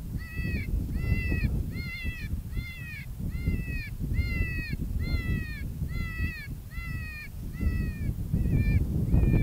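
Predator call playing a repeated animal distress cry to lure coyotes: short, nasal squalls, each rising then falling in pitch, a little under two a second, over low wind rumble on the microphone.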